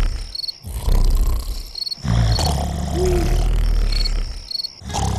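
Snoring sound effect: long, deep, rasping snores with short breaths between, while crickets chirp in short pairs over them.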